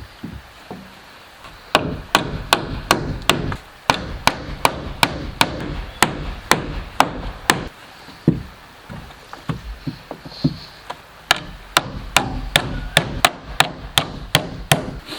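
A hand tool striking wood in quick runs of sharp blows, about three to four a second. The blows break off briefly twice, and there is a softer, more scattered stretch in the middle before another fast run.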